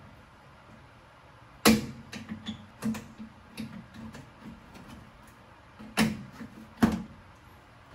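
Sharp clicks and knocks of hand-tool and plastic-fastener work as a Christmas-tree push pin holding a door weather seal is worked free with needle-nose pliers. There is a loud click a little under two seconds in, two more sharp ones about six and seven seconds in, and softer ticks between.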